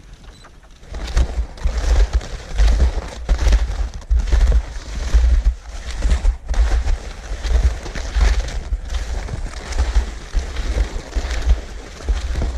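Wind buffeting the microphone on open snow: a loud, gusty rumble that swells and drops every second or so, starting about a second in.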